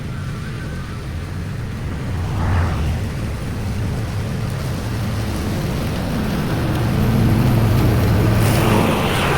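Lawn mower engine running steadily, getting louder about seven seconds in.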